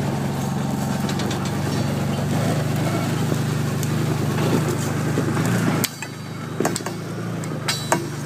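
Can-Am Commander side-by-side's engine running steadily, then dropping off suddenly about six seconds in. A few sharp clicks and knocks follow near the end.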